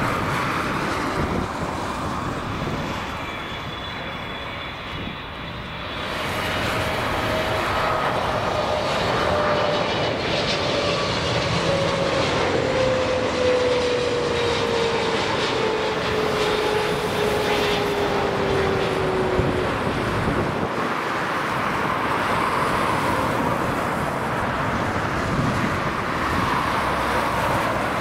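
Boeing 777 freighter's GE90 turbofan engines on landing approach: a steady jet rush, with an engine whine that slides steadily down in pitch as the aircraft passes, fading out about twenty seconds in.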